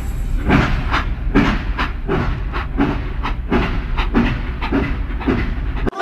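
Steam locomotive chugging: a steady chuff about twice a second over a low rumble. It cuts off suddenly near the end.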